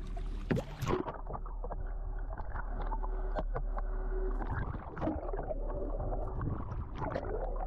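Two splashes in the first second, then muffled sea water heard through a submerged camera: low sloshing and gurgling with scattered clicks and knocks.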